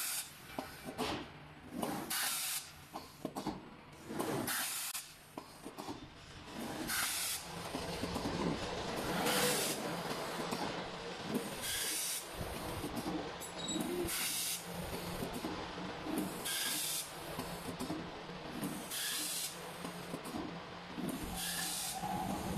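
CNC glass cutting and labelling machine at work: short pneumatic air hisses repeating about every two and a half seconds over a steady machine hum.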